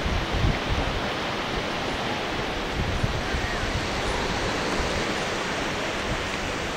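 Steady rushing of wind and surf on an open beach, with wind gusting on the microphone in low rumbles.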